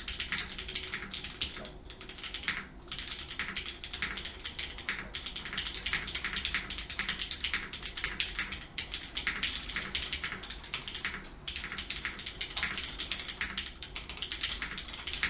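Continuous fast typing on a Geonworks F2-84 mechanical keyboard with lubed, filmed Cherry MX Black linear switches, an aluminium plate and GMK Classic Beige keycaps, a dense stream of keystroke clacks with a couple of brief pauses about two to three seconds in.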